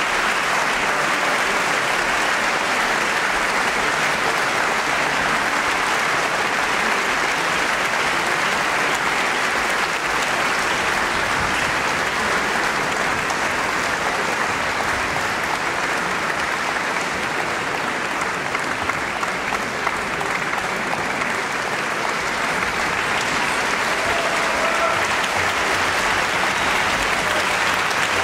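Concert-hall audience applauding steadily, a dense even clapping that holds without letting up.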